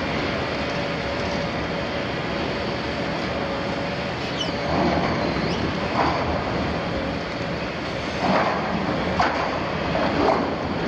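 Liebherr 974 demolition excavator's engine and hydraulics running steadily while its shear tears at the sheet steel of an oil tank wall: a short metal screech about four seconds in, then a series of sharp metallic cracks and crunches in the second half.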